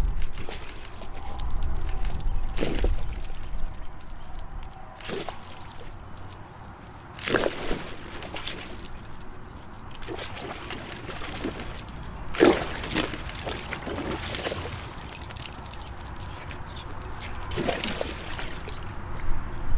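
Soft-coated wheaten terriers playing in a plastic kiddie pool: water splashing and sloshing in bursts, loudest about seven and twelve seconds in, with collar tags jingling throughout.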